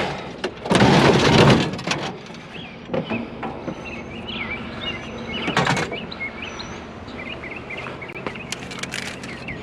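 Small birds chirping repeatedly over a steady low hum. A loud, noisy rustling burst comes about a second in, and a shorter one at about five and a half seconds.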